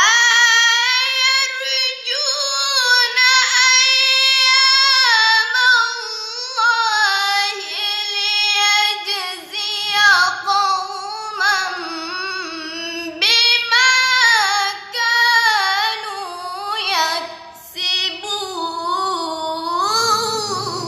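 A girl's voice reciting the Quran in melodic tilawah style: one long phrase that starts suddenly, with long held notes and wavering, ornamented runs of pitch, broken by short pauses and trailing off near the end.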